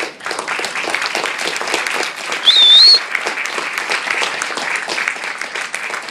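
Audience applauding steadily after a rousing line of a speech. About two and a half seconds in, a high wavering whistle cuts through for about half a second.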